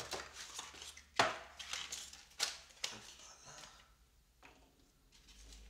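Camera packaging being pulled apart and its contents handled: a few sharp knocks and clicks over light rustling, the loudest about a second in, dying down in the last couple of seconds.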